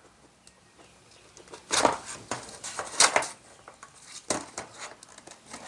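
A knife blade cutting and prying through a stiff clear plastic clamshell blister pack. The plastic gives sharp crackling snaps and scrapes in three main bursts about a second apart, starting a moment in, with lighter ticks between.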